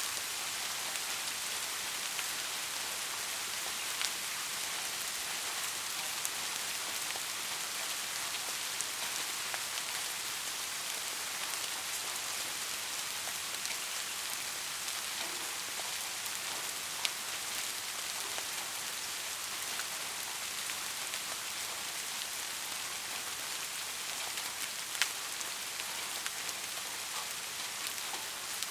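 Steady rain falling: a continuous even hiss, with a few louder single drops striking sharply now and then.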